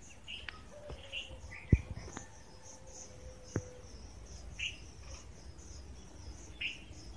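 Insects chirping in a steady, pulsing high trill, with a few short bird chirps over it and some sharp clicks.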